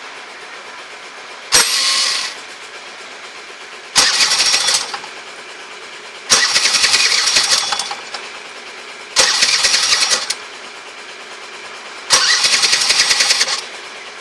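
Honda Gyro scooter engine running steadily, with five short throttle blips, each bringing a sudden, rattly, metallic noise that fades as it settles back. The owner suspects ring noise.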